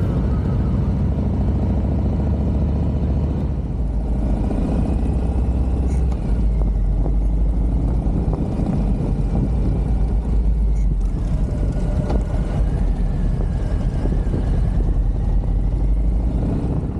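Motorcycle riding at road speed: a steady low engine drone with wind and road noise over it, its note shifting slightly about six seconds in.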